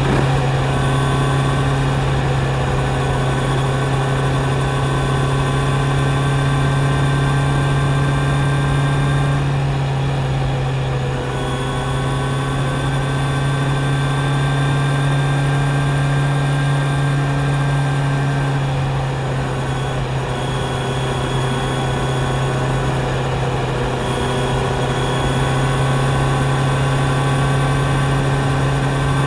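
Kawasaki Z900's inline-four engine running at a steady cruising pitch, heard from the rider's seat. The note changes briefly twice, about ten and nineteen seconds in, then settles back to the same steady drone.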